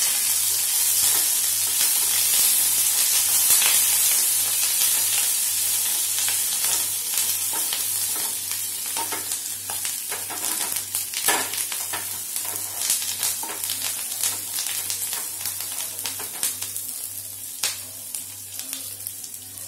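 Chopped garlic, slit green chillies and curry leaves sizzling in hot oil in a small steel kadai as they are stirred with a wooden spatula for a tempering. The hiss is strongest at first and dies away gradually, with scattered sharp crackles and pops in the second half.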